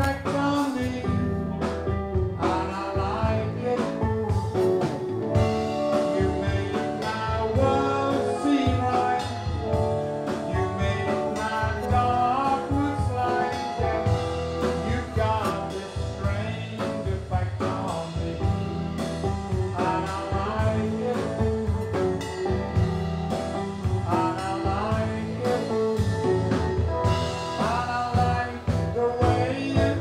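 Live 1960s-style rock band playing a song: a male singer over electric guitars, bass and drum kit.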